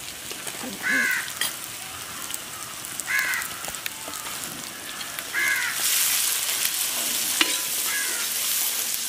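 Sliced onions frying in oil and ghee in a pan, a steady sizzling hiss that grows louder about six seconds in. A crow caws four times, about every two seconds.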